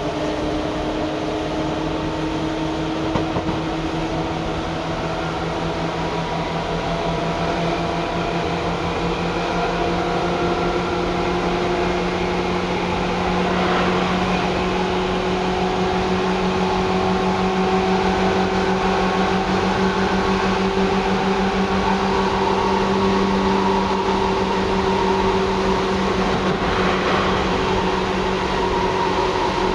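Seibu 2000 series electric train running: traction motor whine with several tones that climb slowly in pitch as it gathers speed, over a steady hum.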